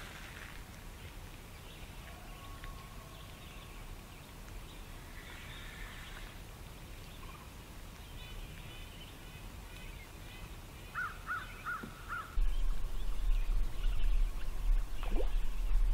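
Quiet open-air lakeside ambience with faint scattered birdsong; about eleven seconds in a bird gives four quick, crow-like calls. Just after, a loud low rumble sets in suddenly and runs on, with a short falling whistle near the end.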